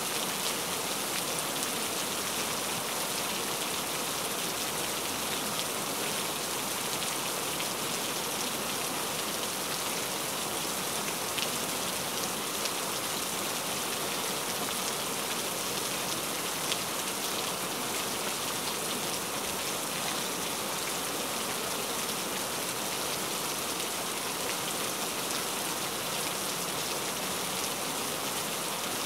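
Steady rain, an even hiss with scattered faint droplet ticks.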